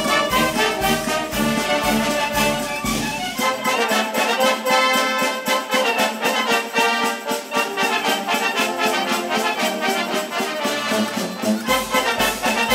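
Brass band playing a pasodoble with a steady beat. The low bass drops out about three seconds in, leaving the higher brass, and comes back in near the end.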